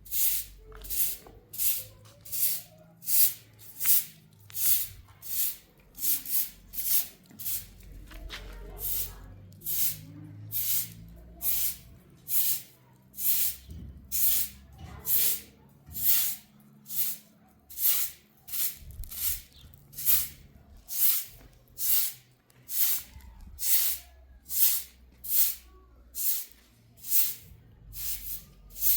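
A broom sweeping a yard in steady, regular strokes, each a short hissing swish, about one and a half a second.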